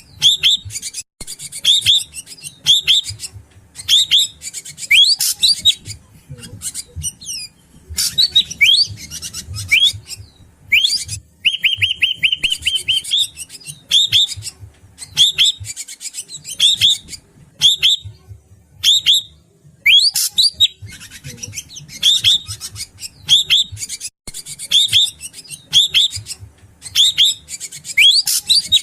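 Drongo (srigunting batu) calling in repeated short bursts of sharp chirps and whistled notes, about one burst a second, with a fast, even trill about twelve seconds in. It is a recorded lure call used to draw wild drongos.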